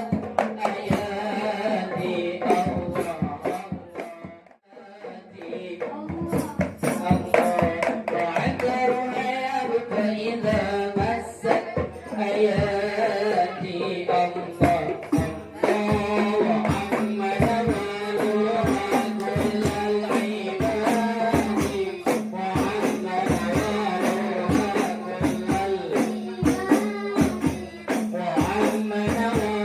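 Hadrah ensemble playing rebana frame drums in a quick, dense rhythm with voices singing over them. The playing drops away briefly about four seconds in, then picks up again and runs on steadily.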